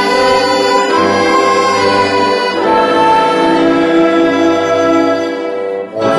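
Live orchestra of strings, flutes, accordion and piano playing slow sustained chords, with a chord change about two and a half seconds in and a brief dip in level near the end before the music resumes.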